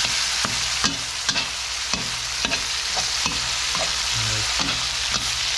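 Pork chunks sizzling in hot oil in a wok, with a metal spatula repeatedly scraping and tapping against the wok as the meat is stir-fried, about two to three strokes a second.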